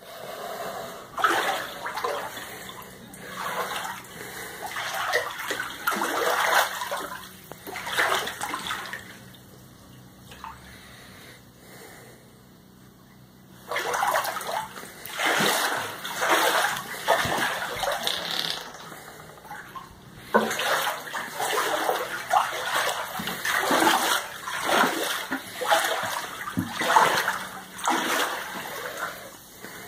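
Standing floodwater splashing and sloshing in irregular surges as someone wades through it, with a lull of a few seconds about a third of the way in.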